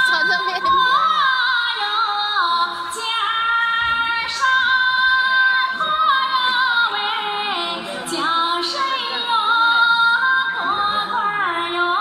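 A woman singing a high-pitched folk song, holding long notes that slide up and down between pitches.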